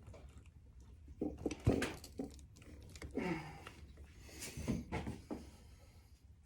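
Carburettor bank of a Honda VFR400 NC30 being pressed down into its rubber intake boots: several dull knocks and clunks, with a short strained vocal sound from the effort about three seconds in.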